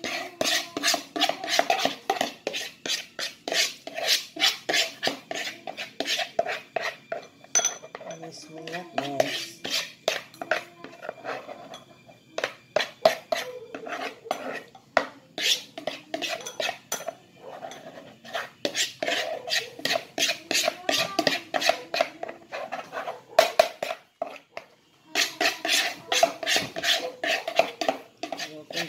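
A metal spoon scraping and tapping against a plastic mixing bowl and a metal baking tin as cassava cake batter is scraped out and spread in the pan. It is a rapid run of sharp clicks and scrapes, several a second, with short pauses about twelve seconds in and near the end.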